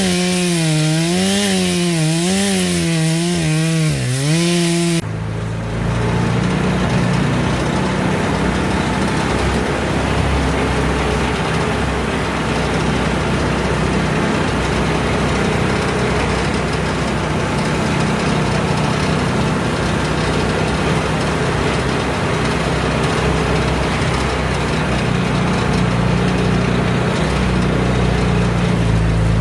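A chainsaw cutting wood, its engine pitch rising and falling under load, cuts off abruptly about five seconds in. An engine then runs steadily under a rough, rushing noise.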